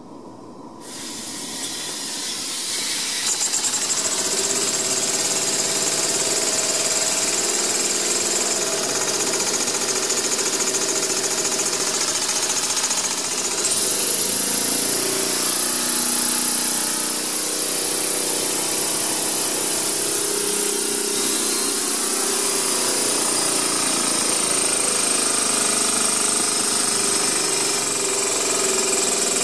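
Small homemade steam engine starting up as steam is let through from the boiler, building to full speed over the first few seconds and then running fast and steady. A high whine in it steps up in pitch about halfway through and slowly drifts back down.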